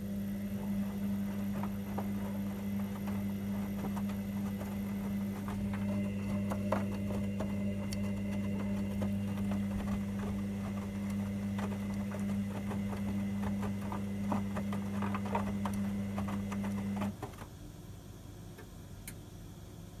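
Hoover VisionDynamic DYNS 7144 DIX washing machine turning its drum in the main wash: a steady motor hum with laundry and water splashing inside the drum. The motor stops about three-quarters of the way through, and the drum comes to rest between tumbles.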